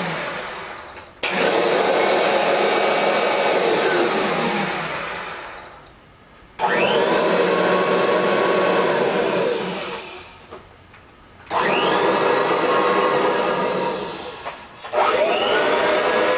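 A group of Kirby upright vacuum cleaners running together, their motor whines at several different pitches. They are switched off and on again repeatedly: the whines slide down together into a short lull, then all surge back up to speed, about four times.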